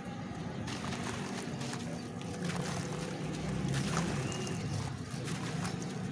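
Dry red dirt crumbling as it soaks in water: small scattered crackles and ticks over a steady low rumble of moving water.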